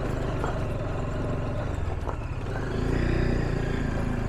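Motorcycle engine running under way on a rough road, with road and wind noise; the engine gets louder about three seconds in.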